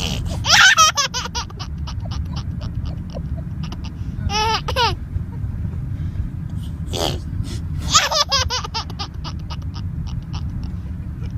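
A baby laughing in two long runs of quick, rapid chuckles, the first starting about half a second in and the second about eight seconds in, with a short pitched squeal between them, over a steady low rumble.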